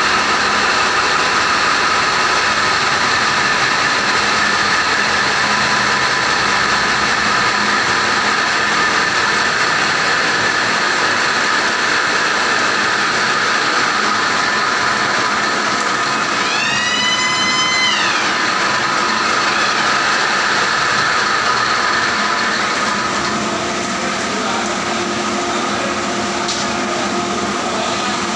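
Loud, steady drone of a ship's engine room with large marine diesel engines running, a dense hum with several held tones. About two-thirds of the way through, a short whistle-like tone rises and then holds for about a second.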